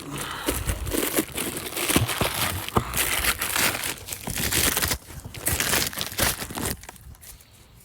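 Plastic packaging crinkling and tearing as new brake pads are unwrapped: a busy run of crackles and sharp rustles that dies away near the end.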